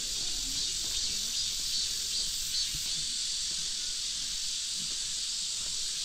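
Cicadas droning in the forest trees: a steady, even high hiss, with a fainter pulsing call above it about twice a second during the first half.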